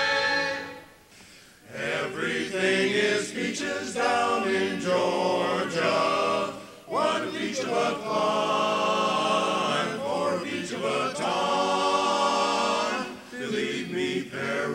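Men's barbershop chorus singing a cappella in close harmony. A held chord fades out in the first second, and after a brief pause the singing starts again.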